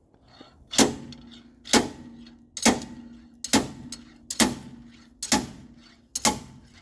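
Seven even hammer blows on metal, a little under one a second, each with a short metallic ring, knocking a worn-out rear wheel bearing out of a car's axle housing.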